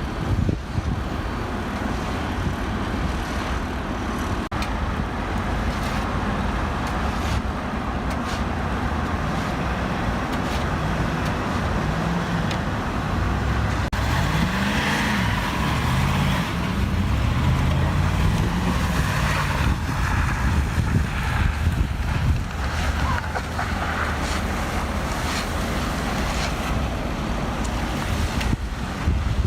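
Road vehicle engine and traffic noise, with an engine's pitch rising and falling several times midway through.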